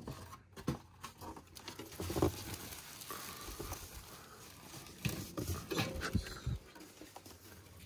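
Rustling and scraping of styrofoam packing with scattered knocks as a large stainless steel fire pit is handled and lifted out of it.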